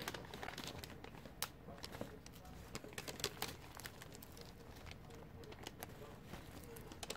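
Faint crackling and crinkling with scattered small clicks as a cheese-topped bread pastry is torn apart by hand on a sheet of paper.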